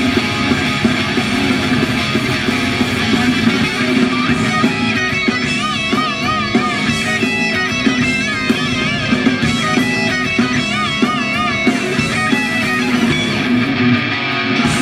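Live heavy metal band playing instrumentally: distorted electric guitars, bass guitar and drums. Through the middle a lead guitar line of bent, wavering notes rides over the band.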